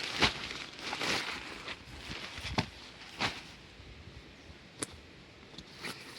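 Rustling with scattered clicks and knocks, busiest in the first few seconds, then sparser and quieter.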